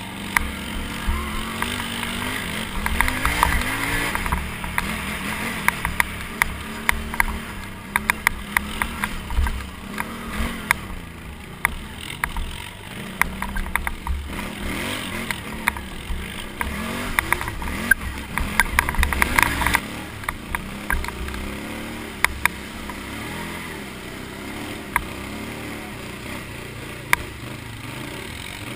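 Can-Am Renegade 800 ATV's V-twin engine, heard from on board, revving up and down as it is ridden, with frequent sharp clicks and rattles over the engine, thickest in the first two-thirds.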